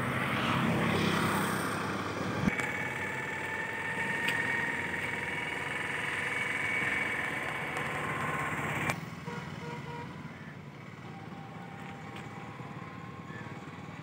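A motor vehicle engine running, with a steady whine that climbs slowly in pitch from a few seconds in; the sound drops away abruptly about nine seconds in.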